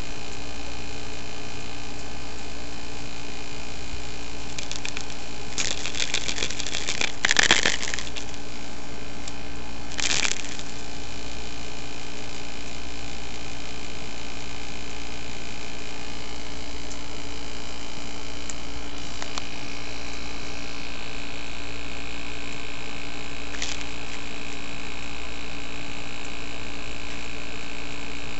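Steady electrical hum, with a cluster of crackly clicks about six to eight seconds in and one more about ten seconds in.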